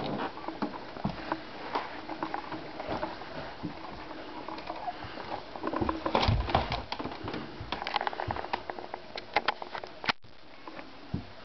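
Footsteps and knocks on wooden floorboards and stairs inside a small log room. They come as an irregular run of clicks and thumps, busiest a little past the middle and again around eight to nine seconds in. The sound cuts out for an instant about ten seconds in.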